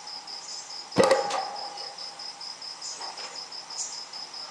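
Metal-framed chair set down on a wooden stage floor: a sharp knock about a second in and a lighter knock just after. A steady, fast-pulsing high chirp runs underneath.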